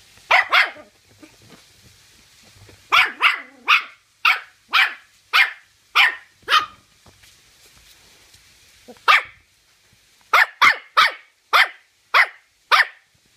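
Toy terrier barking: sharp, high-pitched barks in runs with pauses, two at the start, then a run of about eight, a single bark, and a last run of about six.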